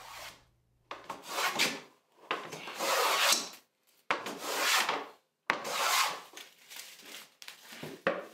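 Hand plane (jack plane) pushed across a wooden board in about five strokes of a second or so each, a rasping hiss as the blade slices off shavings. It is smoothing out the saw-blade marks left from resawing.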